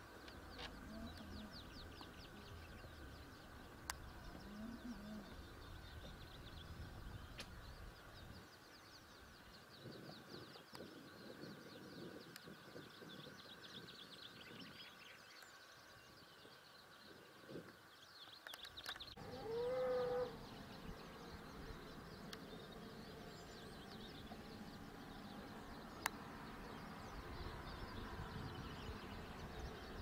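Faint outdoor ambience of small birds chirping, with one louder farm-animal call about twenty seconds in and a sharp click near the end.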